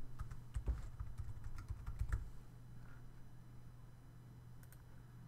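Computer keyboard typing, a quick run of keystrokes for about two seconds, then a couple of faint clicks near the end, over a low steady hum.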